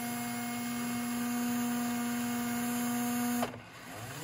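DeWALT DCE570 cordless adhesive gun's motor driving the plunger with the trigger pulled all the way and the speed dial at 6: a steady whine that cuts off about three and a half seconds in when the trigger is released. It then whirs briefly again with rising pitch as the anti-drip feature backs the plunger up.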